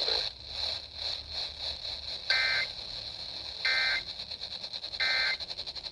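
Emergency Alert System end-of-message data bursts on an FM radio broadcast: three short, identical warbling digital squawks about a second apart, starting a little over two seconds in. They signal the end of the alert. Radio hiss lies underneath.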